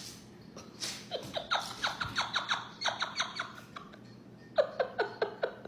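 A cat's paws squeaking on a freshly washed, slippery floor: two runs of quick, short squeaks, about five or six a second, each squeak dipping slightly in pitch, the second run starting near the end.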